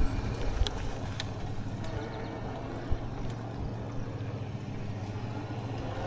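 Wind and road rumble picked up by an action camera's microphone on a moving e-bike: a steady low rumble with a few light clicks and ticks.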